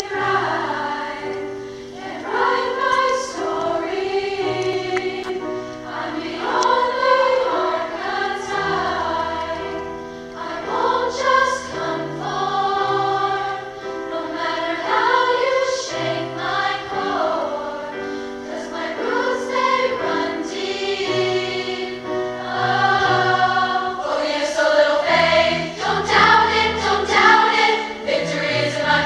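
Large massed choir of girls' voices singing in parts, accompanied by a grand piano whose low bass notes sound under the voices.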